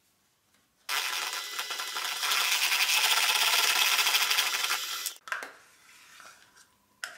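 Electric hand mixer beating batter in a stainless steel bowl. It switches on about a second in, runs steadily for about four seconds, then cuts off.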